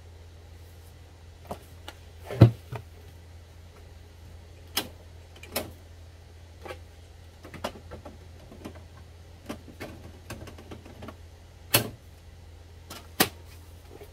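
Irregular clicks and knocks of plastic parts being handled and fitted on an HP Officejet Pro 8630 inkjet printer, a dozen or so, the loudest about two and a half seconds in, over a low steady hum.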